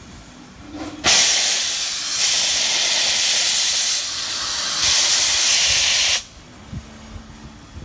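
Miniature live-steam locomotive venting steam low at the front, beside its cylinders: a loud hiss that starts suddenly about a second in and cuts off about five seconds later.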